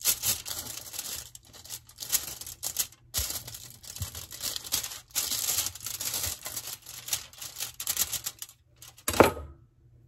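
Kitchen knife cutting around a ripe avocado, its blade rasping and crackling through the pebbly skin in many short strokes, with aluminium foil crinkling underneath. One louder knock near the end.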